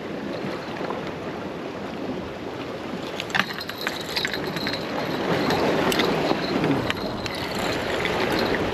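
Wind and surf against rocks, with a few clicks about three seconds in, then a spinning reel being cranked to bring in line, its thin high whir coming and going over the wind.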